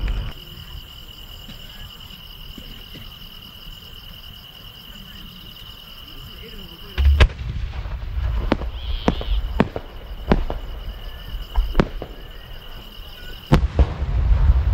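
Large aerial fireworks shells: after several quiet seconds, a deep thump about halfway through as a shell goes up, then a string of sharp cracks and bangs, and a heavy rumbling boom near the end as a big shell bursts.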